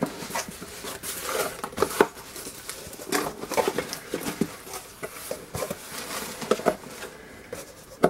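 Cardboard shipping box being handled: its flaps folded back and rubbed, giving irregular scrapes, rustles and light knocks.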